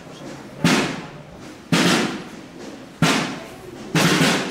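Slow processional drum beats, four hard strokes about a second apart in an uneven, march-like cadence, each dying away quickly.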